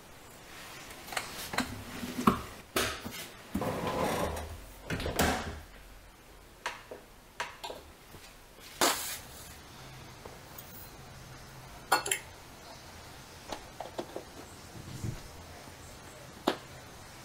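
Scattered clicks and knocks of plastic parts and containers being handled in a kitchen, around a dishwasher's detergent dispenser and a counter. There is a denser rustling, scraping stretch about four to five seconds in, and single sharp knocks near two, nine, twelve and sixteen seconds in.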